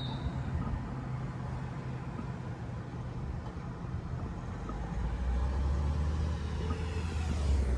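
Street traffic: a motor vehicle's engine rumbling low, growing louder about two-thirds of the way in as a heavy vehicle draws near.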